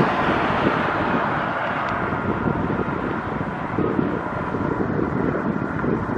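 Wind buffeting an unshielded camera microphone: a steady, fluttering rumble. Under it is a rushing noise that fades over the first few seconds.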